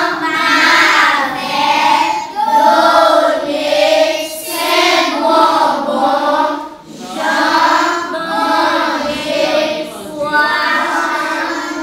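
A class of young schoolchildren reciting a lesson aloud in unison, in a sing-song chant, phrase after phrase with short pauses between.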